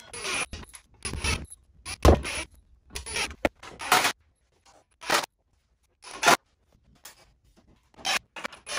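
A string of short, separate bursts of shop noise, about a dozen of them, as screws are driven into 2x4 framing with a cordless driver and the boards are handled.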